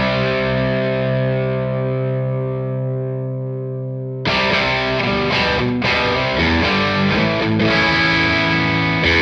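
Electric guitar played through a fuzz and chorus into a vintage-style amp sim. A distorted chord rings out and slowly fades for about four seconds, then fuzzy chords and notes start up again.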